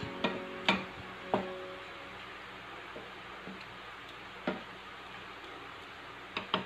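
Spatula stirring thick creamy pasta sauce in a stainless steel frying pan, with a handful of short knocks of the spatula against the pan over a faint steady hiss.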